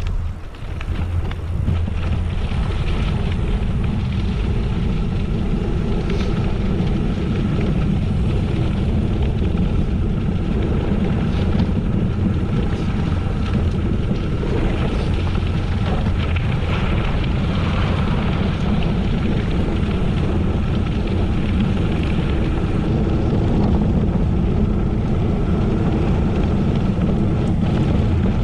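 Steady wind rush on the microphone over the low rumble of a bicycle rolling over gravel.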